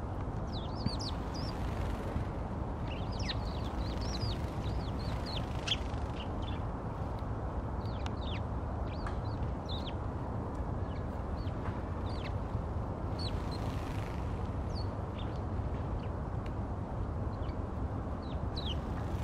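A flock of Eurasian tree sparrows chirping at a roost: scattered short, sharp chirps, busiest in the first few seconds and sparser after. A steady low rumble of background noise runs underneath.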